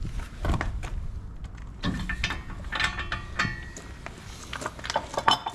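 Wrench clinking against the propeller nut and bronze propeller as it is worked on the shaft: irregular sharp metallic clicks and knocks, some with a brief ringing tone.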